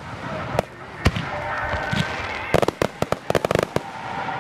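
Aerial fireworks going off: a sharp bang about a second in, then a rapid string of crackling pops a little past halfway.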